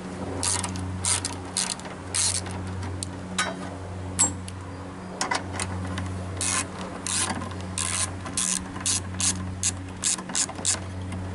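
Socket ratchet clicking in short irregular runs as bolts are undone, over a steady low hum.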